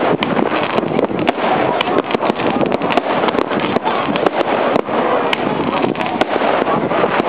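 Fireworks going off: a dense, continuous crackle of sharp bangs and pops, several a second, from many shells and firecrackers at once.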